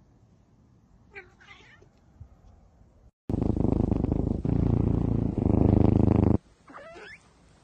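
A cat meows once, about a second in. Then a sleeping kitten purrs loudly and steadily for about three seconds in three long breaths. A short mew follows near the end.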